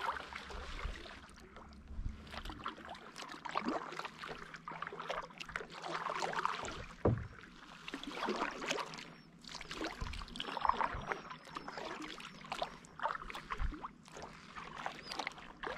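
Kayak paddle strokes dipping and splashing in shallow water, rising and falling every second or two, with a few short low knocks.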